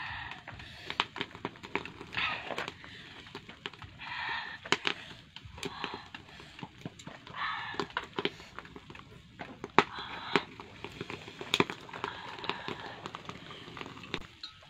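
Charcoal in a clay pot stove crackling and clicking with many short, irregular snaps while the coals are being arranged, with high children's voices coming and going every couple of seconds.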